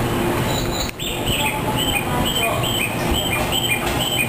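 A high two-note chirping, high then low, repeating about twice a second from about a second in. Under it is the low rumble of a JR 113 series electric train pulling out.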